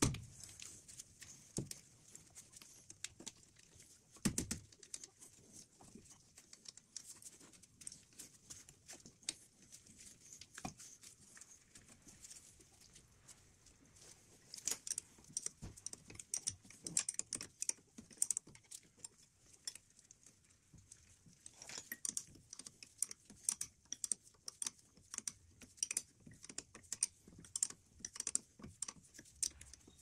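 Small hand ratchet clicking in quick runs as the brake caliper bolts are wound in, with light metallic knocks of tools and parts and a few dull knocks, the clearest about 4 seconds in.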